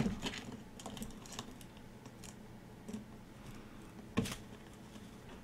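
A parrot's beak clicking and tapping against a plastic PVC perch: a handful of sharp, irregular clicks, with a cluster at the start and the loudest about four seconds in.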